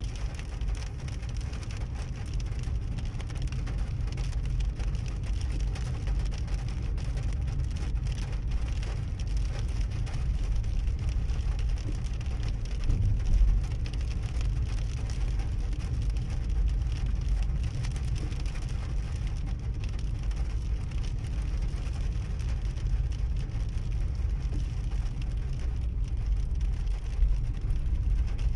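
Rain falling on a moving car and its tyres on the wet road, heard from inside the cabin: a steady hiss over a low rumble.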